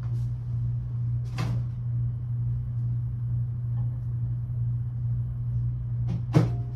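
A steady low hum with two knocks: a soft one about a second and a half in and a sharper, louder one near the end.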